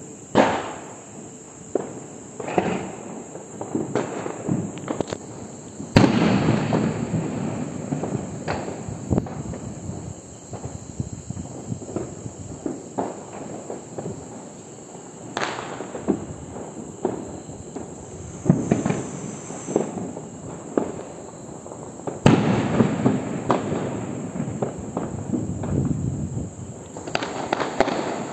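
Fireworks and firecrackers going off in a continuous string of bangs and crackling, with the loudest bangs about six seconds in and again about twenty-two seconds in, each followed by a long dense crackle.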